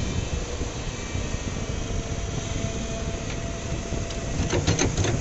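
A JCB loader's diesel engine runs steadily while white granules slide off its tipped bucket into a truck bed. A quick cluster of sharp clicks and knocks comes near the end.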